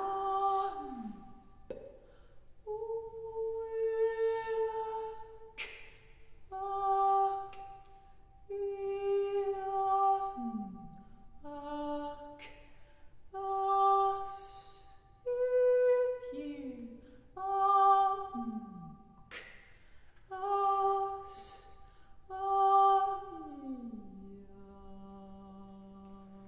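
A woman's voice humming and singing about ten separate held notes, each a second or two long, several ending in a downward slide in pitch. A few sharp clicks fall between the notes.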